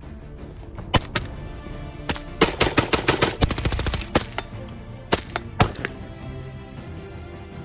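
Gunfire over background music: a few single shots, then a fast burst of shots lasting about a second and a half a little after two seconds in, then three or four more single shots around five seconds in.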